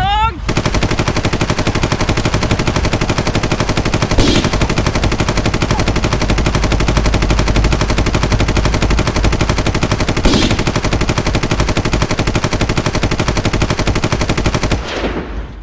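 Rapid, unbroken automatic fire like a minigun, a long continuous stream of fast shots. It starts about half a second in, has two brief louder bursts, and cuts off suddenly near the end.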